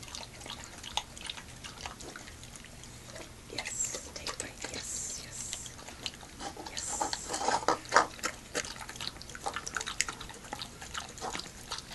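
Old English Sheepdog eating chunks of turkey and liver from a bowl, chewing and gulping with a steady run of small wet clicks. The eating is busiest about seven to eight seconds in. For a dog with kennel cough that has barely eaten all week, this eating is a welcome sound.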